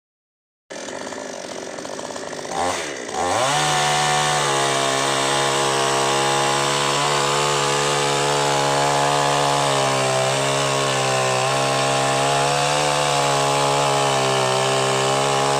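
Ogawa two-stroke petrol chainsaw starting up about a second in at a low idle. It revs up about three seconds in and then runs steadily at full throttle as the chain cuts into a log.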